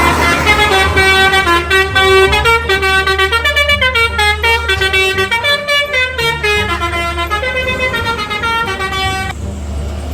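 Telolet multi-tone bus horn playing a quick melody of short stepping notes over a steady low engine hum; the tune cuts off about nine seconds in.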